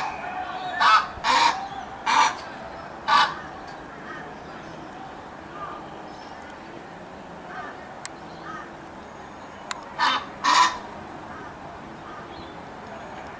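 Australian white ibis giving short croaking calls: five in quick succession in the first three seconds, then two more about ten seconds in.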